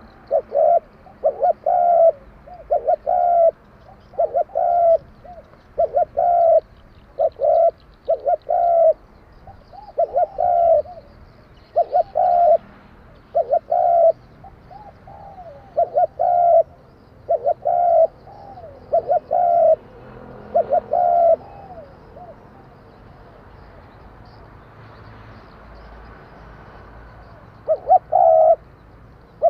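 Spotted dove cooing with the 'đồng kim' voice type prized by Vietnamese dove keepers: phrase after phrase of coos in quick succession. The dove stops for several seconds after about 21 s, then starts again near the end.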